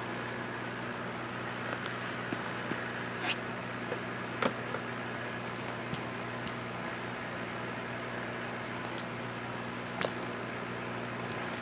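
Steady low machine hum of running room equipment, with a few light clicks and taps scattered through.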